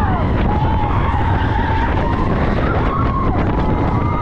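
Slinky Dog Dash roller coaster train racing through turns: wind rushes over the microphone while the wheels squeal on the track in tones that slide up and down in pitch.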